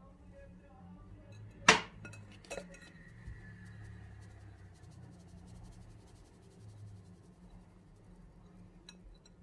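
A sharp clink of kitchenware against the mixing bowl about a second and a half in, then a lighter clink, as flour is sifted into the bowl; otherwise only a faint low hum.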